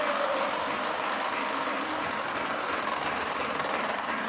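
Lionel Pennsylvania Flyer Lion Chief O-gauge electric train set running around its track, a steady rushing rumble of the locomotive and cars rolling along the rails.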